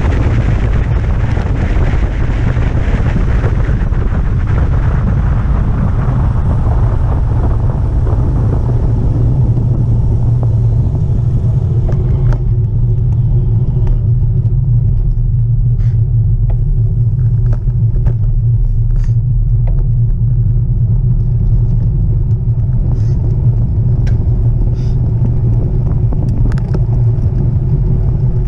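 Wind buffeting the microphone of a bike-mounted camera while riding, a steady low rumble. A higher rushing noise eases off by about twelve seconds in, leaving the rumble and a few light clicks.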